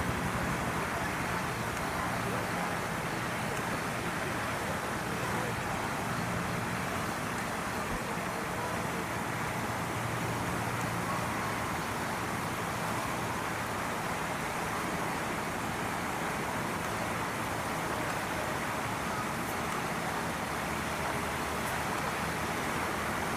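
Steady outdoor background noise with no distinct events, with a faint low hum in roughly the first half.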